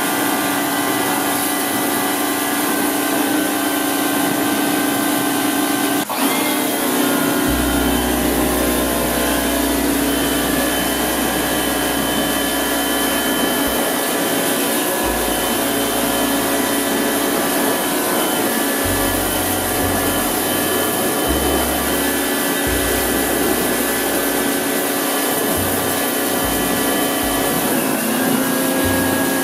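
Pressure washer running steadily, its motor hum under the hiss of the water jet striking a steel gate. About six seconds in the pitch dips sharply and recovers, and it drops a little near the end.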